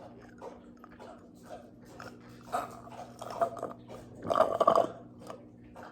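A person gulping down Perrier sparkling water: a string of swallows and wet mouth sounds, the loudest cluster about four seconds in.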